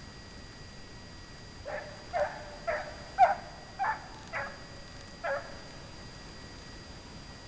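A scent hound baying, seven calls in about four seconds, each dropping in pitch into a short held note, as a hound gives tongue when running a hare's trail.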